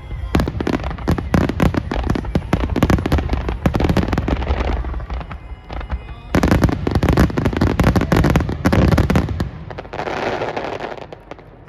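Aerial fireworks: a rapid barrage of crackling bursts over low booms in two volleys, with a short lull about five seconds in. The barrage dies away near the end.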